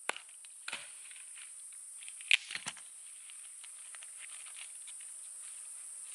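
Steady high-pitched insect buzzing, likely crickets, with a few scattered sharp knocks, the loudest about two seconds in.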